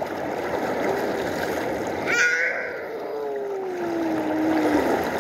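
Shallow river water rushing steadily. A brief high call about two seconds in, and a long low call that slowly falls in pitch in the second half.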